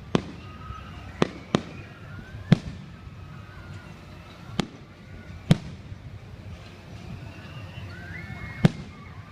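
Fireworks exploding: about seven sharp bangs at uneven intervals, the loudest one near the end, over a low rumble.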